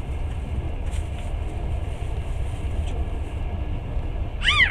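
Passenger train running, heard from aboard: a steady low rumble with a few faint clicks. Near the end comes a short, high squeak that rises and falls in pitch.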